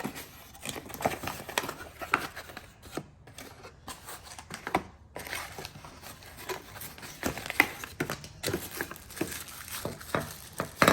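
Packaging being opened by hand: irregular crinkling, crackling and tearing.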